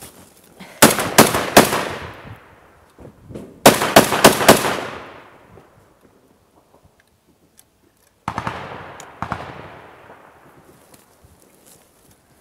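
Close automatic rifle fire in short bursts: about four rapid shots about a second in, another four about four seconds in, then two quieter shots around eight to nine seconds, each burst echoing away.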